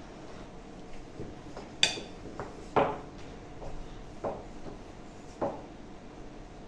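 A few sharp clinks and knocks of utensils at the table, the loudest two about two and three seconds in and two softer ones later. They come from a spoon on a plate and a wooden rolling pin on a wooden pastry board while dough is rolled and filled.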